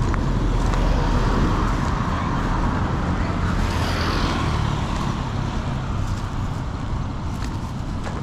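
Street traffic: a motor vehicle's engine running close by with a low rumble, easing off after the middle.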